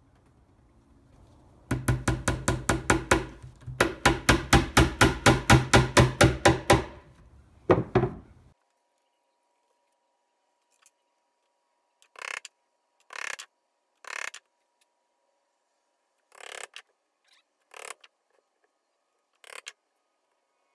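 Small hammer tapping a tack through a leather corner into a speaker cabinet: two quick runs of light, even blows, about six a second, then one more blow. Later come a few short, soft rustles a second or so apart.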